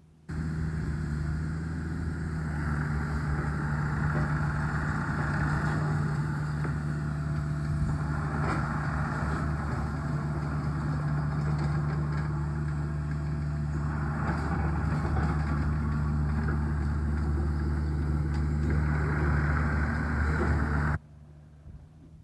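Hanix H55DR mini excavator's diesel engine running steadily under working revs, with a hiss that swells and fades several times as the hydraulics drive the boom, slew and tracks. The sound cuts off suddenly about a second before the end.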